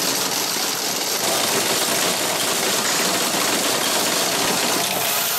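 Baker's Pacers horse-race payout machine running, its motor-driven mechanism moving the horses down the track with a steady mechanical noise.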